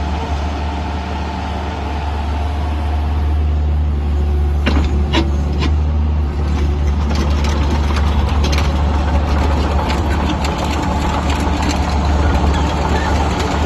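3.5-ton mini excavator's engine running steadily, growing a little louder a few seconds in, with scattered knocks and clanks from about five seconds in.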